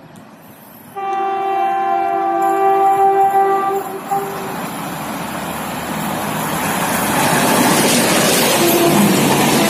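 Indian Railways WAG-7 electric locomotive sounding its horn in one chord-like blast of about three seconds, starting suddenly about a second in, with a short toot just after. The rumble and rush of the locomotive and its LHB coaches at speed then build up and become loudest near the end as the train passes close by.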